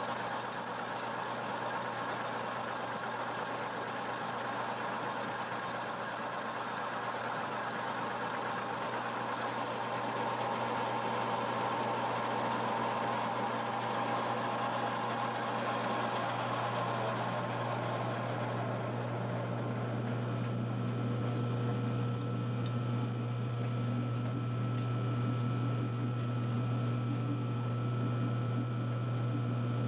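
Metal lathe running steadily with a boring bar cutting the inside of a turbocharger compressor housing, opening the bore for a larger compressor wheel. A steady motor hum runs under a hissing cut; the hiss drops away about ten seconds in, and scattered light ticks come through near the end.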